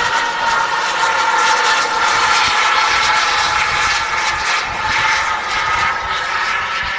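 RC model jet's turbine engine running in flight overhead: a steady high whine of several tones over a wide rushing hiss, fading slightly near the end.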